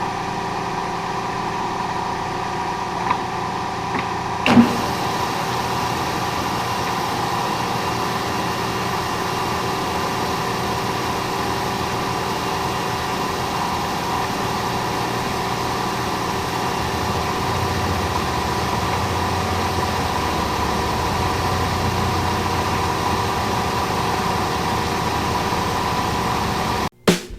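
Milling machine running steadily while taking a cut across a vise jaw blank. There is a small click about three seconds in and a sharper knock a second or so later, and the sound cuts off suddenly at the very end.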